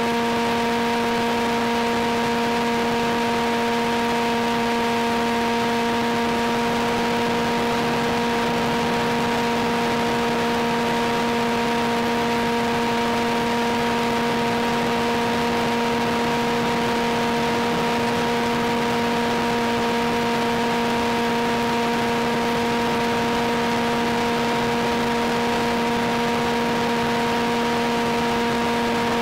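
Steady static hiss with a constant, unchanging hum underneath, as heard on the audio channel of an FPV video feed.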